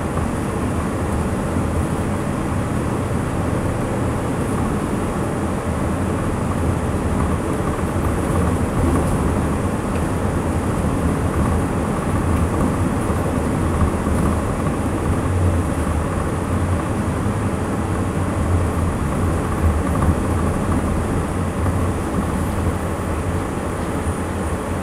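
Cabin noise inside a 2009 ARBOC SOM bus under way: its GM Duramax 6.6 L V8 turbodiesel running, with steady road rumble.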